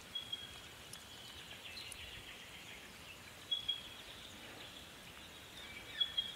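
Quiet bush ambience with a bird giving short, high whistled notes three times, a few seconds apart.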